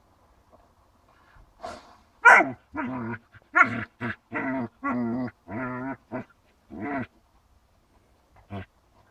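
Dogs play-fighting: a quick run of about nine short play-growls, each under half a second, from about a second and a half in to about seven seconds, with one more short one near the end.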